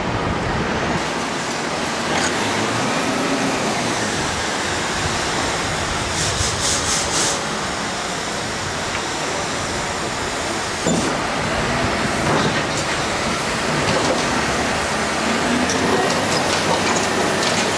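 Heavy machinery working a debris pile: the steady din of excavator and truck diesel engines, rising and falling in pitch at times. There is a brief rapid high-pitched rattle about six seconds in and a sharp knock near eleven seconds.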